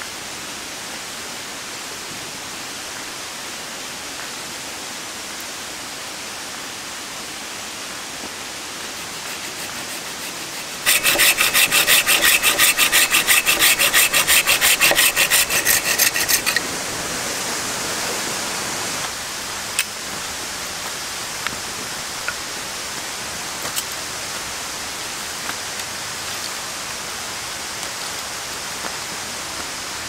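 Folding pruning saw cutting through a thin dead branch with quick back-and-forth strokes, about five a second, for about five seconds. Later come a few scattered light clicks.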